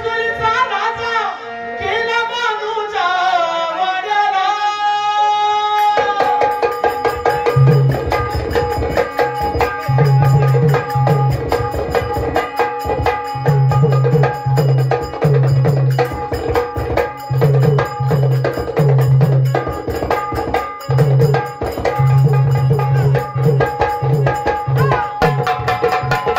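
Marathi folk song music: a melodic lead with sliding notes, joined about six seconds in by a fast hand-drum rhythm with deep, regular thumps under steady sustained tones.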